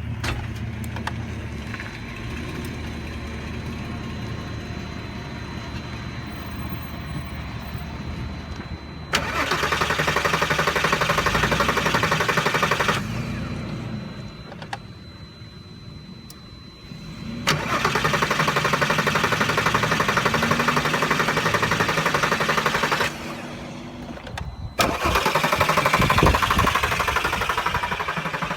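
2004 Volkswagen R32's VR6 engine cranked on the starter three times, about four to five seconds each, without catching, after several seconds of a lower steady hum. A no-start that a new fuel injection relay has not cured, which the mechanics put down to a failed fuel pump.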